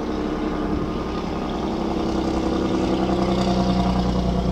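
A heavy diesel truck's Jake brake (compression-release engine brake) working as the truck goes by: a steady, pitched engine drone that grows louder near the end.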